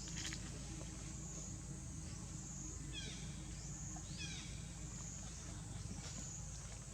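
Outdoor ambience with a steady high hiss and low rumble, and two short runs of descending chirping calls about three and four seconds in.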